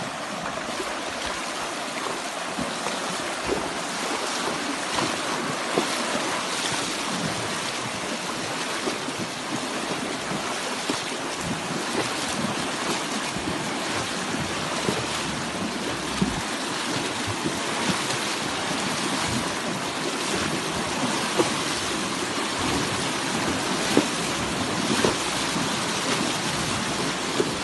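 Horses wading across a river: water rushes and splashes steadily around their legs, with many small sharp splashes throughout.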